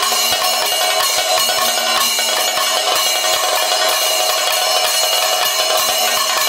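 Kerala keli percussion: a chenda drum struck with a stick and a maddalam barrel drum played by hand in dense, rapid strokes, over the steady ringing clash of ilathalam hand cymbals.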